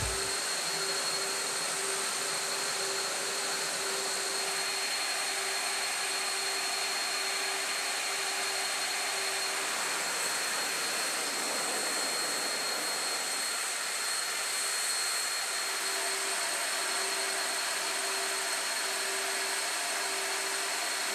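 Steady mechanical rushing noise with a high steady whine, the machinery and ventilation noise of an aircraft carrier's hangar deck. A low pulsing tone runs through the first half and comes back near the end.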